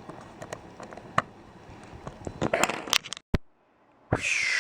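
Small clicks and taps of a laptop's parts and tiny screws being handled during reassembly, with a denser rustling scrape about two and a half seconds in. The sound cuts off abruptly after about three seconds, and near the end a loud hissing rush with a falling whistle-like tone begins.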